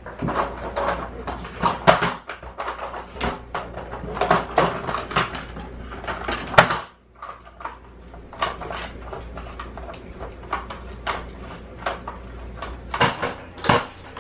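Hard plastic dog puzzle feeder toy clattering and knocking on a hardwood floor as a dog noses and paws at it, in irregular clicks and rattles with one sharper knock about halfway through.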